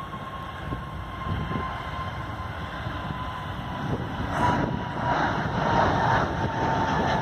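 Airbus A320neo's Pratt & Whitney geared-turbofan engines at takeoff thrust: a jet roar growing louder as the airliner lifts off, with a steady whine that sinks slightly in pitch.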